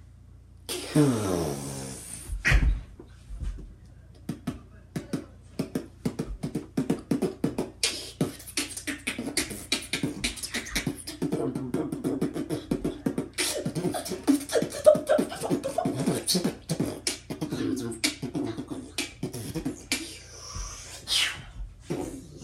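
A boy beatboxing: a falling vocal swoop about a second in, then a fast run of clicks and percussive mouth sounds mixed with short hummed tones.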